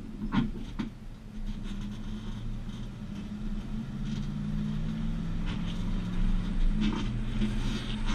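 A 2012 Chevrolet Silverado 1500 with the 5.3 V8 towing a trailer at low speed: steady road rumble and an engine hum that rises slowly in pitch. A few short knocks or rattles come from the rig, twice about half a second in and once near the end.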